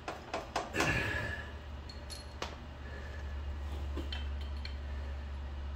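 Light metallic clinks and taps of tools and metal parts, several close together in the first second, then a couple of short ringing pings, over a steady low hum.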